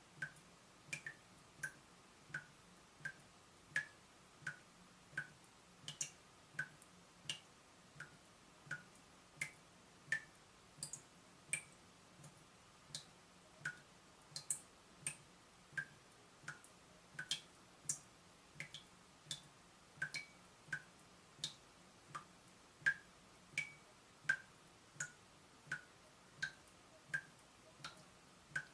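Water dripping steadily from a leaking tap, about three drops every two seconds. Each drop is a short, clear drip, some higher-pitched than others.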